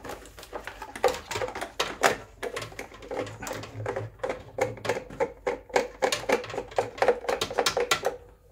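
Quick, irregular clicking and tapping of plastic parts being handled and fitted while a reverse-osmosis filter is reassembled.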